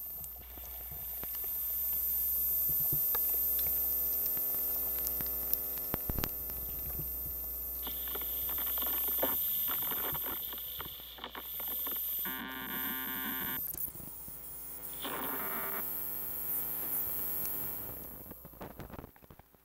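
Experimental electronic noise music: a steady low hum under a hiss of layered noise, with scattered clicks. Held tones come in about halfway through, and it thins out near the end.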